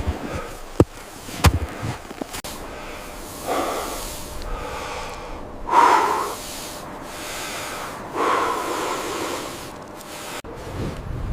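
A few sharp knocks, then three heavy breathy exhalations or snorts, the middle one the loudest.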